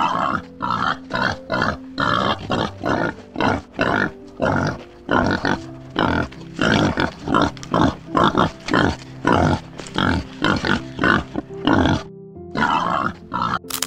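Warthogs grunting in short, quick bursts, about two or three a second, over light background music. The grunting stops shortly before the end.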